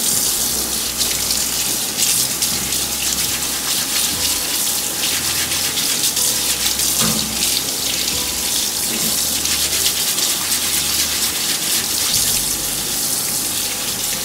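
Kitchen tap running steadily into a stainless steel sink, the water splashing over a large rock oyster as its shell is washed by hand.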